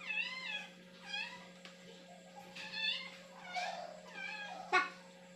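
A domestic cat meowing over and over, about six wavering meows a second or so apart, the last one the sharpest and loudest.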